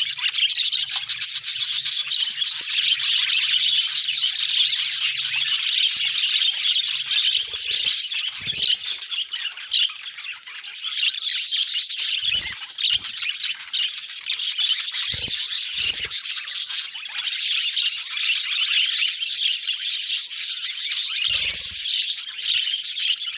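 Budgerigars chattering and warbling in a dense, continuous high-pitched stream, with a short lull about ten seconds in. A few soft low thumps break through now and then.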